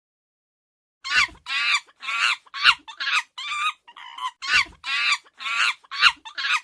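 Chimpanzee calling: a rapid series of short, high-pitched shrieking calls, about two a second, starting about a second in.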